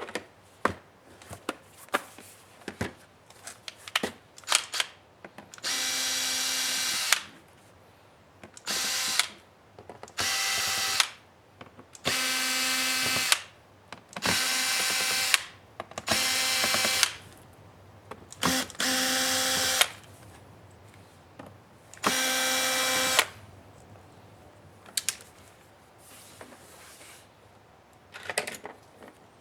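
Small electric screwdriver motor running in about eight short bursts of a second or so each, backing out the screws of a laptop's bottom case, with clicks and taps of handling before and after.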